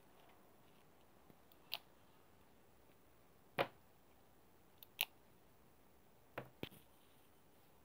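Near silence, broken by a handful of faint, short clicks about a second or so apart, the loudest about three and a half and five seconds in, with a quick pair a little after six seconds.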